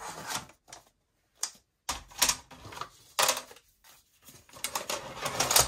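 Plastic paper trimmer and other craft tools being lifted, moved and set down on a cutting mat: a series of clattering plastic knocks, a few on their own and then a quick run of them near the end, a crashing and banging.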